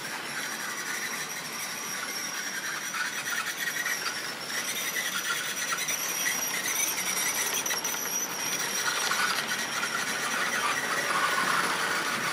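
Model railway train running past: a steady high-pitched motor whine over the rattle and squeal of small wheels on the track, growing gradually louder as the locomotive and its tank wagons come by.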